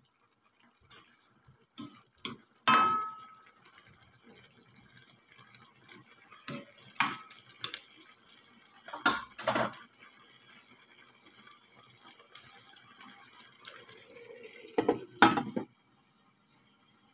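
A spatula knocks and scrapes against a nonstick wok as string beans and chicken liver are stirred, over a faint steady sizzle. Near the end a glass lid clatters onto the pan with a few sharp knocks.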